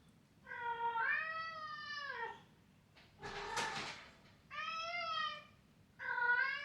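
A domestic cat meowing: four long, drawn-out calls that rise and fall in pitch, the first the longest at nearly two seconds and the second rougher and breathier than the rest.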